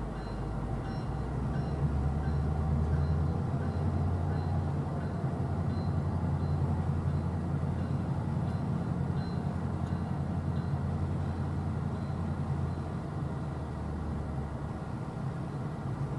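FEC and Herzog ballast hopper cars of a freight train rolling past on the rails, a steady low rumble of wheels on track that swells a couple of seconds in and eases slightly near the end.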